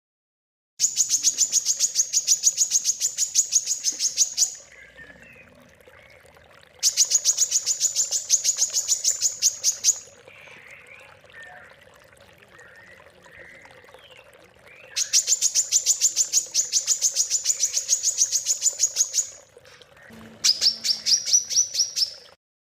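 Songbird singing four bursts of very rapid, high-pitched repeated notes, each two to four seconds long. The last burst is shorter, lower and rises slightly. These are the rapid 'tembakan' bursts prized in Indonesian songbird contests. Fainter chirps come between the bursts over a faint steady hum.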